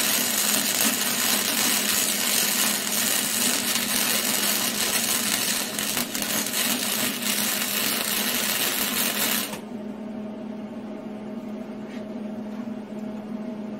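Hobart wire-feed welder running flux-core wire: the arc crackles and sputters steadily, then stops abruptly about nine and a half seconds in as the trigger is released. A low steady hum continues underneath.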